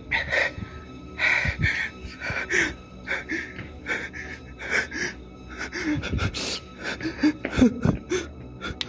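A man breathing hard in short gasps, with a few dull thumps, over a quiet background music bed.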